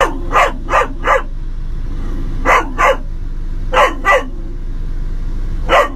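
European Doberman puppy barking inside a vehicle cabin: about nine sharp barks in short clusters, four quick ones, then two pairs and a last single bark. They are alert barks at men approaching the vehicle.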